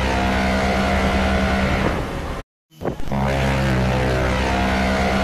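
Ship's horn of the Italian ocean liner Michelangelo sounding a long, steady, low blast. It cuts off about two and a half seconds in and, after a short gap, sounds again.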